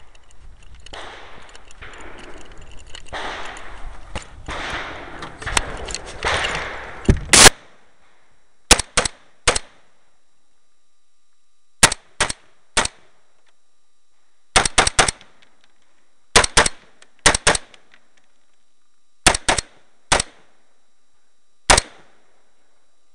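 About seven seconds of rustling and handling noise that grows louder, then a string of sharp rifle shots from a Colt AR-15A2, about eighteen in all, mostly fired in quick pairs and threes a couple of seconds apart.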